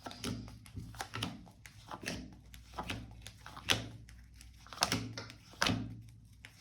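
Tarot cards being shuffled and handled on a table: a string of irregular crisp card snaps and taps, the loudest a little past the middle.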